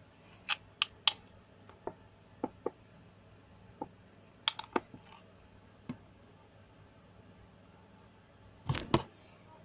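Scattered small sharp clicks and taps, about a dozen, from a small plastic container with a yellow cap being handled and fiddled with. A louder short cluster of knocks comes about nine seconds in.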